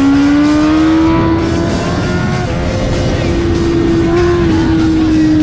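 Sport motorcycle engine running at high revs on the move, a steady high-pitched drone that climbs slightly in the first second, eases a little about two seconds in, then holds, over steady wind rush.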